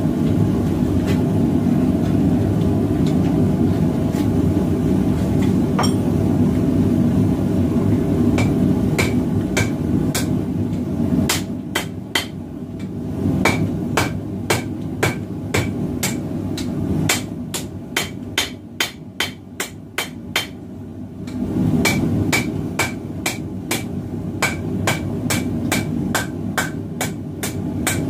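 Hammer striking hot 1080 carbon steel on an anvil, forging out a knife blade: sparse blows at first, then a steady run of ringing strikes about two a second. Under them runs the steady roar of a propane forge, which drops away through the middle and comes back near the end.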